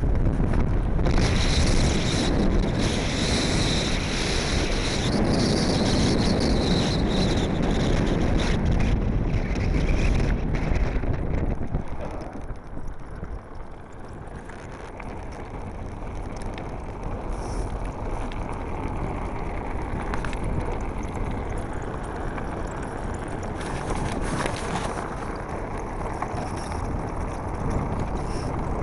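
Wind buffeting the microphone over the rumble of a Blokart land yacht rolling fast across a dry lakebed. The noise drops sharply about twelve seconds in, then builds back to a steadier, lower level.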